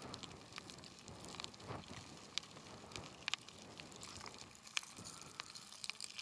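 Pahoehoe lava flow crackling faintly, with sharp irregular ticks and pops as its cooling crust cracks, over a low hiss.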